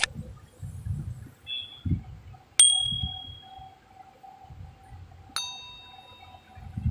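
Three sharp metallic dings about two and a half seconds apart, each ringing out and fading over a second or so, over a low pulsing throb.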